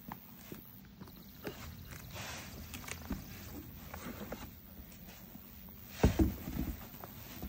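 Motocross boot being handled: scattered small clicks and rustles of buckles and stiff boot material, then a cluster of heavy thuds about six seconds in as the boot knocks on the wooden deck.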